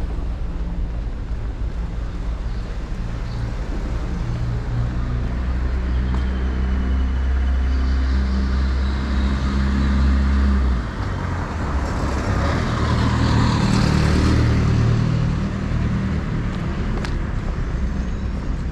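City street traffic: a motor vehicle's engine running close by with a steady low hum that changes about eleven seconds in, with more traffic swelling past a little later.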